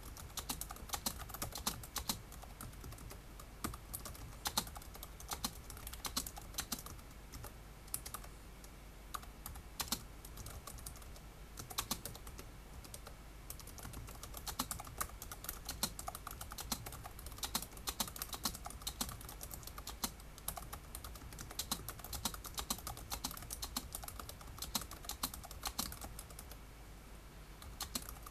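Logitech DiNovo Edge keyboard being touch-typed at about 65 words a minute: a fast, uneven stream of key clicks, with some strokes noticeably louder than the rest.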